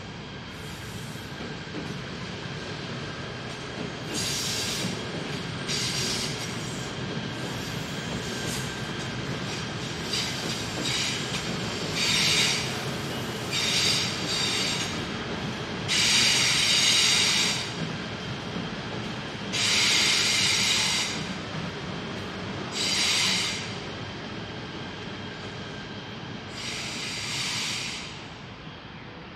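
KTM Komuter electric train running past with a steady rumble of wheels on rail. High-pitched wheel squeal comes and goes about nine times, each squeal lasting a second or so, the longest and loudest in the middle of the pass.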